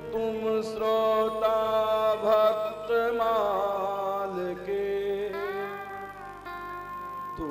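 A man singing a devotional Hindi verse in a slow, drawn-out melody with long gliding notes, over a steady held instrumental drone.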